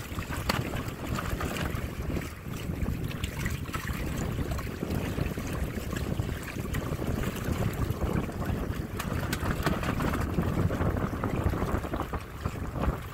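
Wind buffeting the microphone and water rushing along the hulls of a Windrider 17 trimaran under sail, a steady rushing noise with no breaks.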